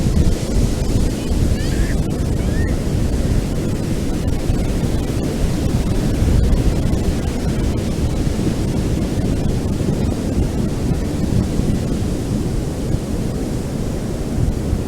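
Ocean waves washing onto a beach in a steady, continuous surf, with wind rumbling on the microphone.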